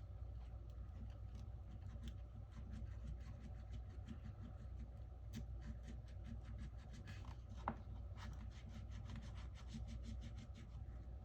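Faint scraping and clicking of a tool slicing through the adhesive holding a Samsung Note 10+'s glass, with one sharper click about three-quarters of the way through and a quick run of small ticks near the end, over a steady low hum.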